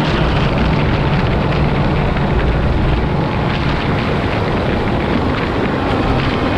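Loud, steady motor vehicle noise: an engine running with a continuous rushing roar, with no clear change in pitch.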